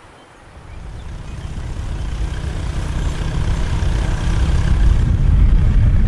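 Motorcycle engine running as the bike comes up a dirt track, a low rumble that starts about half a second in and grows steadily louder as it approaches.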